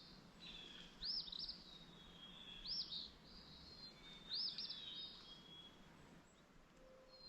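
A small songbird singing a short phrase of high, arched notes, repeated three times about every second and a half.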